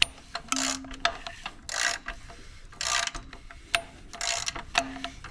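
A ratchet wrench on the crankshaft bolt turns an inline-four engine over by hand. It clicks in short ratcheting strokes about once a second, with a few sharper clicks between them.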